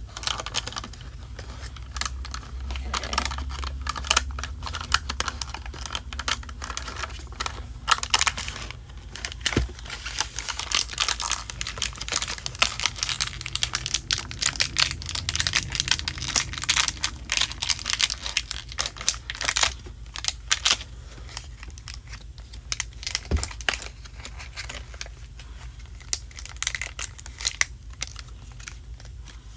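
Rapid, irregular clicks and taps mixed with crinkling, from objects being handled.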